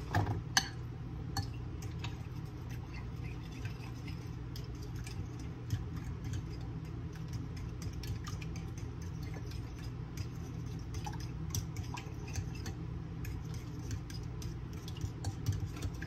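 Eggs and sour cream being beaten by hand in a glass bowl: a utensil clicking again and again against the glass, over a steady low hum.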